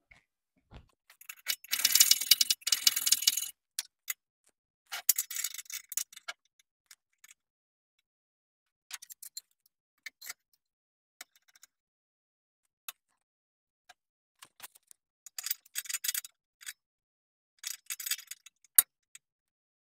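Short rasping scrapes of metal on steel, taking down a blob of weld on a car subframe, then scattered clicks and taps as a steel plate and a clamp are handled, with a few more scraping bursts near the end.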